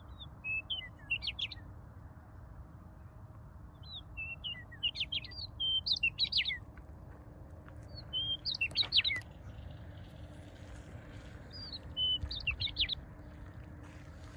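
A songbird singing a short, quick phrase of high chirping notes four times, roughly every three to four seconds, over a low steady background rumble.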